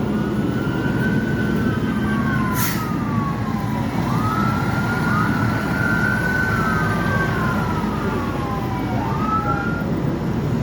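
Emergency vehicle sirens wailing, two of them overlapping, each rising and falling slowly over several seconds. They sound over a steady low engine rumble.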